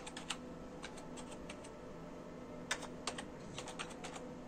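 Computer keyboard keys being tapped in quick irregular runs as a password is typed, two runs with a pause of about a second between them, over a faint steady hum.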